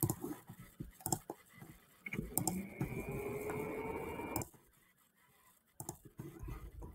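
Scattered mouse clicks, with a steady whirring and a faint rising whine for about two seconds midway.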